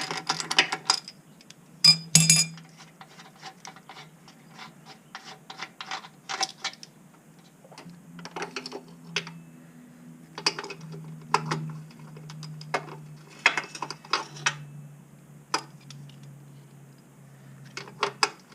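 Hand socket ratchet clicking rapidly on an engine-bay bolt, stopping about a second in. It is followed by scattered sharp metallic clinks and knocks of wrenches and bolts against metal, with a faint low hum through the middle.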